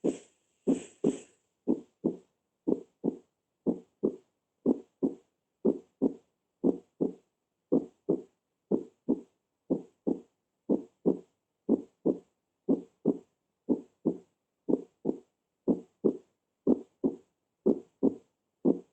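Recorded normal heart sounds: paired lub-dub beats of the first and second heart sounds, steady at about one pair a second, with clean gaps between the beats.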